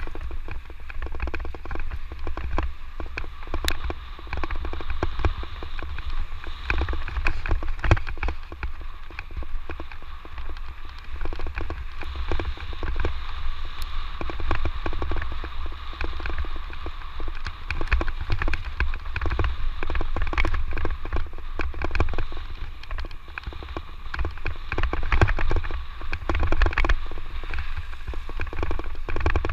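Electric mountain bike riding a rough dirt trail: a constant stream of rattles and knocks from the bike and tyres over the ground, over a steady low rumble.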